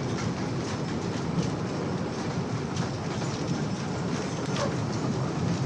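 Train of the Scenic Railway, a wooden side-friction roller coaster, rolling along its track: a steady low rumble of wheels with irregular clacks.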